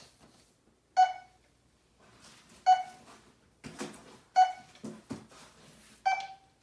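A handheld audible locator beacon for blind sports, a box with volume, tone and rate controls, sounds a short single-pitched beep about every second and three-quarters, four times. There is some rustling and a few knocks around the middle.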